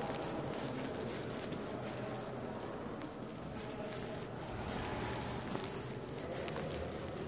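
Indistinct background of a large indoor hall: faint, distant voices with no clear words, under a light, frequent crackling rustle.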